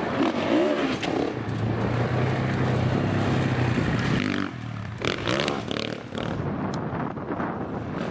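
Sidecar motocross outfit's engine revving hard: a held high-revving note for a few seconds, then a drop about four and a half seconds in before it revs up again through the corner.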